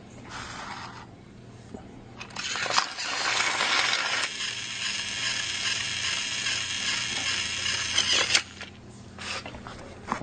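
Small geared motor running with a steady whir for about six seconds, starting about two seconds in and stopping suddenly, with clicks as it starts and stops.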